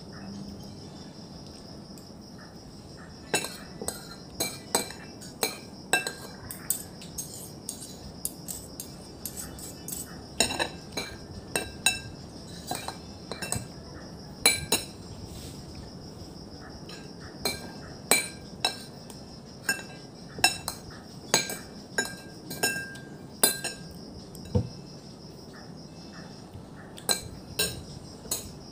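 Metal spoon clinking and scraping against a dish during a meal, short irregular clinks every second or so. Behind it a steady high insect trill.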